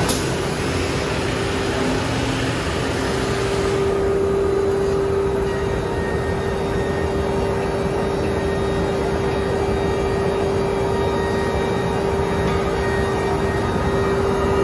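WoodMaster WM 246 TF automatic edge banding machine running as a laminated board feeds through it: a steady machine hum with a constant mid-pitched whine, and a hiss that fades about four seconds in.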